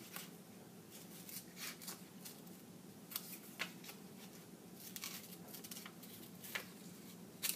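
Scissors cutting paper: short, irregular snips about every second or so, the loudest one near the end.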